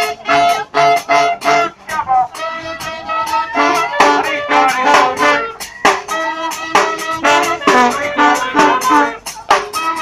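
Funky brass band playing live: horns sounding held notes and riffs in harmony over sharp percussion hits that keep a steady beat.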